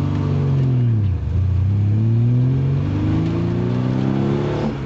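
A Triumph rally car's engine heard from inside the cabin under acceleration. The revs rise, fall away about a second in, then climb steadily for about three seconds and drop sharply near the end.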